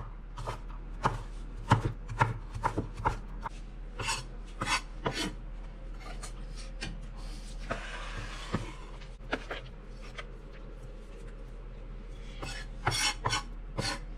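Chef's knife mincing garlic on a wooden cutting board: quick, irregular knocks of the blade on the board, a brief scraping sound about eight seconds in, then another quick run of chops near the end.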